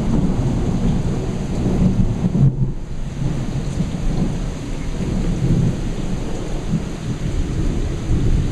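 Thunder rolling in a long low rumble that swells and eases, over the steady hiss of rain.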